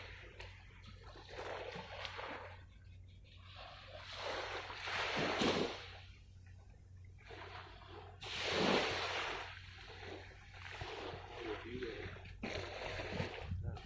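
Small waves washing onto the shore in slow surges a few seconds apart, the biggest about five and nine seconds in, over a steady low hum.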